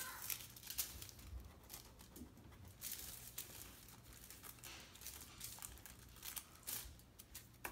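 Faint, irregular crinkling and scraping of aluminium foil as slime on it is sliced and trimmed with a knife.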